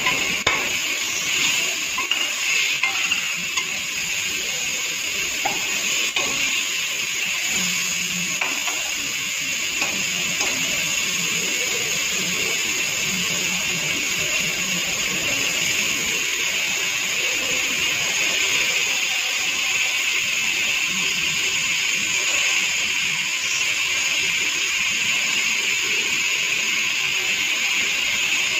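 Onions and herbs frying in oil in an aluminium pressure cooker, sizzling steadily. A few clinks of a metal skimmer against the pan come in the first few seconds.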